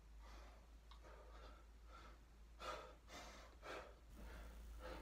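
A man's faint, effortful breathing during crunches: short puffs of breath every second or so, with two stronger ones about two and a half and three and a half seconds in.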